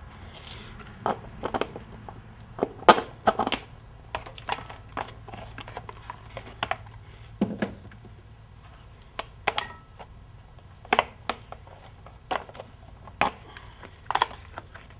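Metal hand tools and bolts clinking and clanking at irregular intervals, the sounds of a socket wrench being used to unbolt parts from an engine.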